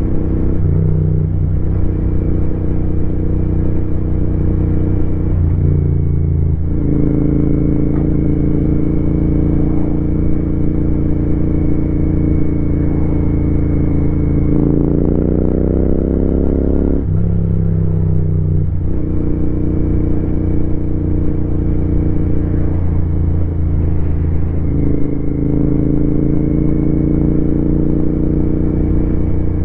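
Royal Enfield Continental GT 650's parallel-twin engine and exhaust running under way, holding a steady note with a few gear changes. Around the middle it revs up for a couple of seconds, then drops in pitch twice as it shifts up.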